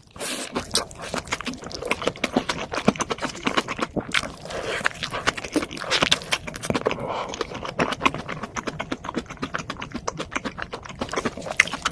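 Close-miked chewing and biting of a burger and fries: a dense, irregular run of crunchy clicks and crackles.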